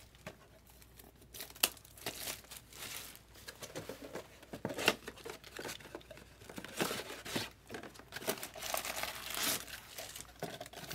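Sheets of paper being handled and shuffled, rustling and crinkling in irregular bursts that grow busier after the first couple of seconds.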